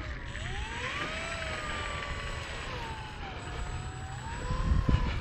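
Electric motor and propeller of a Dynam C-188 Air Tractor RC plane whining as it taxis on a runway, the pitch rising and falling with the throttle. Under it, a low rumble that swells near the end.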